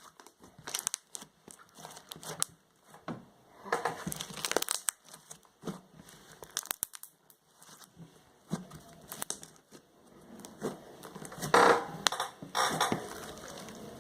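Homemade glue slime being stretched and pressed by hand, giving irregular crackling clicks and small pops as trapped air escapes, with a louder burst of crackles near the end.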